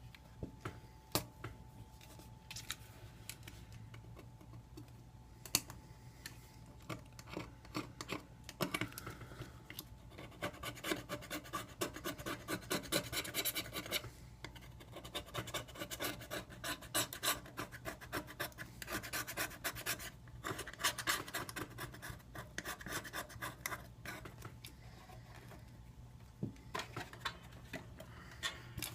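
Scraper scratching old screen adhesive off a Samsung Galaxy S3's frame in quick short strokes, a few scattered scrapes at first, then long runs of rapid scraping from about a third of the way in.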